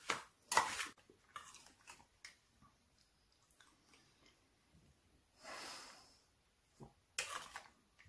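Metal spoon clinking and scraping against a stainless steel bowl of strawberries in sour cream, two sharp clinks in the first second, then quieter scrapes. Eating sounds follow: spoonfuls taken and chewed, and a soft half-second breath about five and a half seconds in.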